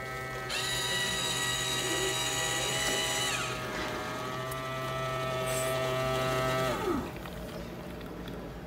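Donggu instant coffee vending machine running as it dispenses hot coffee into a paper cup: a motor whine that starts about half a second in, dips slightly in pitch a little past three seconds, then winds down and stops about seven seconds in.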